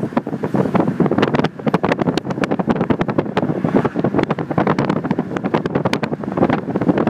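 Wind buffeting a phone's microphone while moving, a loud, irregular rush broken by rapid crackles and gusts.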